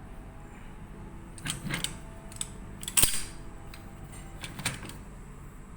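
Metal parts of a hydraulic piston pump clinking and knocking as they are handled during disassembly, with one loud sharp metallic clank that rings briefly about three seconds in.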